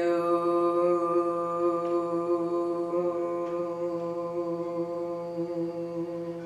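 A woman's voice holding one long, steady 'oo' vowel at an unchanging pitch, slowly getting softer: the qigong healing sound 'U' for the kidneys. Near the end the tone breaks briefly and fades out.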